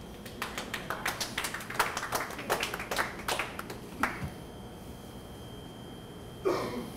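A small group of people clapping for about four seconds, then stopping. Near the end comes a brief vocal sound.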